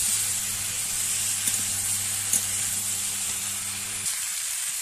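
Potato, pumpkin and drumstick pieces sizzling in hot oil in a steel kadai as they are stirred with a metal spatula, with a couple of light clicks from the spatula. The sautéed vegetables are nearly done before water is added.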